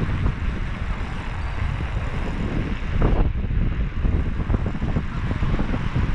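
Steady low rumble of wind buffeting a camera microphone while riding a mountain bike, mixed with the tyres rolling over the wooden decking of a cycle boardwalk.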